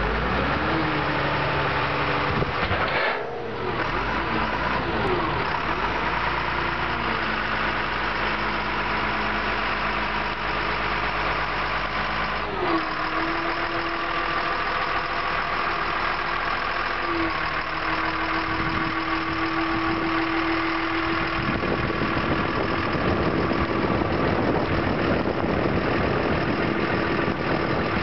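Caterpillar 960F wheel loader's turbocharged diesel engine running steadily as the machine drives about, with two abrupt shifts in the sound near 3 and 12 seconds in.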